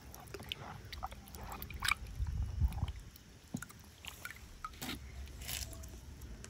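Water sloshing and splashing softly in a plastic tub as a hand rubs a small plastic toy figure clean, with scattered light clicks of the figure and fingers against the tub.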